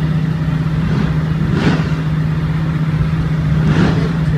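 Supercar engine idling with a steady low hum, plus two short louder bursts, one about a second and a half in and one near the end.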